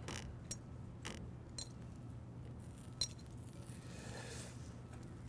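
Cooking tongs clicking and tapping against a wire grill grate and a ceramic bowl as asparagus spears are set on the grill: a handful of light clicks about half a second to a second apart, the sharpest about three seconds in. A faint steady low hum runs underneath.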